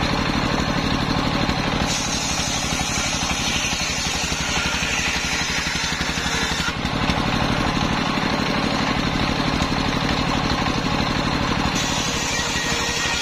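Stationary diesel engine running steadily, driving a large circular saw blade through the belt. The blade rips a waru log into boards with a higher hissing cut that comes in about two seconds in, drops out around seven seconds, and starts again near the end.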